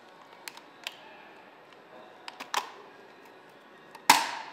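Light plastic clicks as the DJI Phantom 3's top shell is worked loose from its clips, then a loud sharp snap about four seconds in as the shell pops free.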